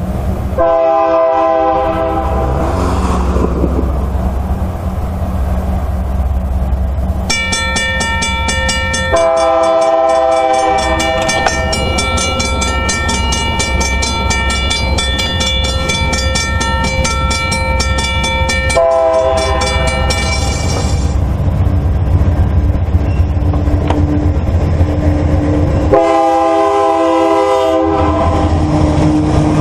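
Diesel freight locomotive's air horn sounding several blasts: a short one, then one held for about eleven seconds, then a short one and another near the end. Under the horn runs the low, steady rumble of the BNSF locomotives, which are passing close by near the end.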